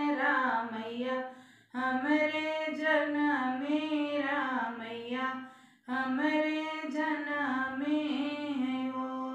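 A woman singing a sohar, a North Indian folk song for a birth, solo and unaccompanied, in long held melismatic phrases. She breaks off for a breath about two seconds in and again about six seconds in.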